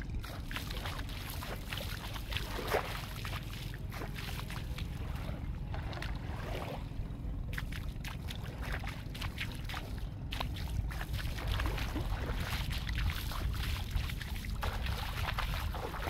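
Beach ambience: steady low wind rumble on the microphone, with faint lapping and trickling of shallow water at the shoreline.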